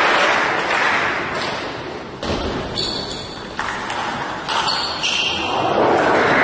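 Table tennis ball being struck back and forth in a rally, sharp pings off the rackets and table, over the noise of the crowd in a large hall.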